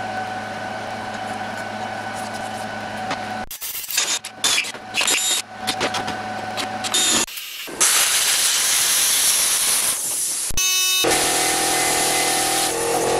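A steady machine hum, then a few seconds of short chopped-up bursts as a drill bores through steel plate. From about the middle on, a plasma cutter hisses loudly as it cuts a hole in the steel plate, with one brief break.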